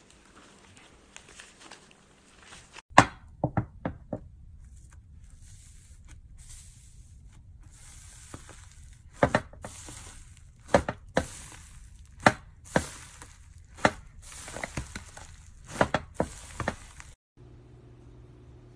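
Hands playing with slime: a soft crackling of foam slime being squished, then, about three seconds in, a long series of sharp pops and clicks as fingers press into a glitter-covered slime, stopping suddenly near the end.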